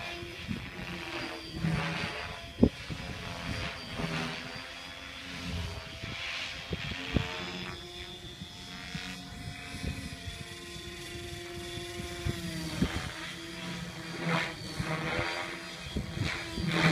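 Align T-Rex 550 DFC electric RC helicopter flying aerobatics overhead: the rotor blades chop in rhythmic pulses while the motor and rotor whine shifts in pitch, holding steady for a few seconds in the middle and then dropping. A single sharp click about two and a half seconds in.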